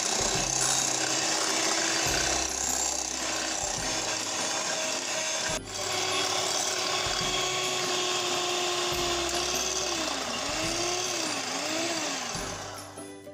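Electric hand mixer running, its beaters whisking beaten eggs and cream in a glass bowl: a steady motor whine with the whir of the beaters. It breaks off very briefly about five and a half seconds in and fades out near the end.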